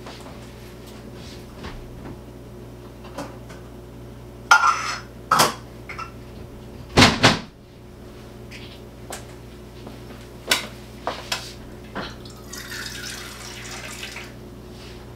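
Kitchen clatter of a cup and cupboard: a few sharp knocks, the loudest about seven seconds in, then a tap running briefly near the end as a small cup is filled with water.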